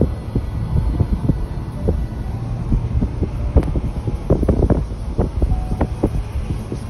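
Road noise and engine rumble of a moving vehicle heard from inside its cabin, with a run of short knocks and rattles that bunch up in the middle.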